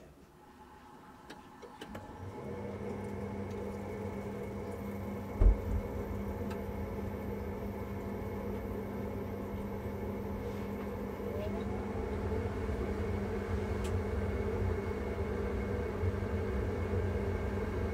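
Worcester Bosch Greenstar 4000 gas combi boiler starting up for hot water: the fan spins up over a couple of seconds into a steady hum as the burner fires at full power. A single thump about five and a half seconds in.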